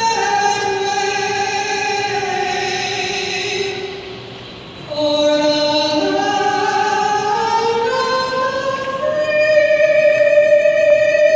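A woman singing the national anthem solo in an ice hockey arena, in long held notes. After a brief breath pause about four seconds in, she climbs to a long sustained high note near the end.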